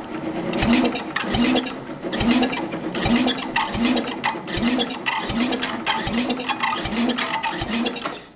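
Sears Suburban 12's 12 hp Tecumseh single-cylinder engine cranking slowly on its starter, about two compression strokes a second, without firing. It turns over sluggishly on a weak battery and does not start.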